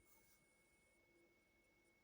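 Near silence: faint room tone with a thin steady high tone.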